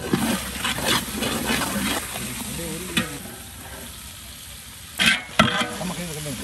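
Metal ladle stirring and scraping sliced onions and ginger-garlic paste frying in oil in a large metal pot, with a steady sizzle and sharp knocks of the ladle against the pot about three seconds and again five seconds in.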